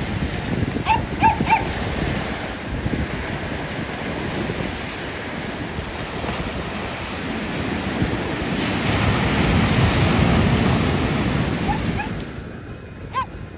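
Sea surf washing onto a beach, with wind buffeting the microphone; the surf swells louder about eight seconds in and drops away sharply near the end. A few short high chirps sound about a second in.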